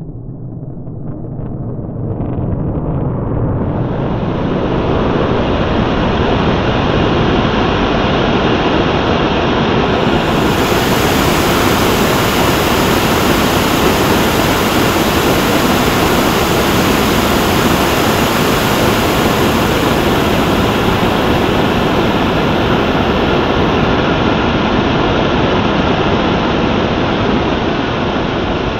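Steady rushing noise, building over the first four seconds and then holding, that goes with the slow-motion burn of a solid-fuel model rocket engine in a vacuum chamber. It is drawn out far past the real one-second burn.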